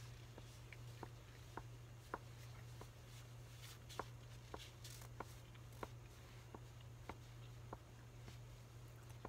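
A man chewing food: faint, short irregular clicks about one or two a second, over a steady low hum.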